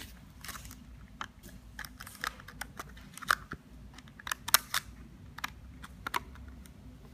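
Irregular small clicks and taps from handling the touch-film cable and its PCBA board, the sharpest about four and a half seconds in, over a faint low hum.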